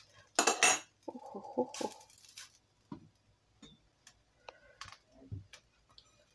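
A metal utensil scraping pieces of fried chicken out of a non-stick frying pan into a stainless steel saucepan: two loud scrapes in the first two and a half seconds, then a few light clicks and knocks of cookware.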